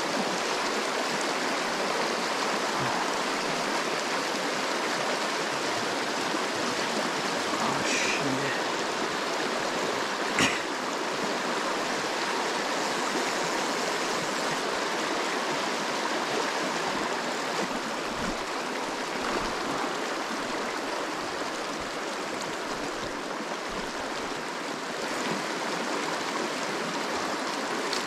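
Steady rush of a small, shallow river running over rocks and gravel, with one sharp click about ten seconds in.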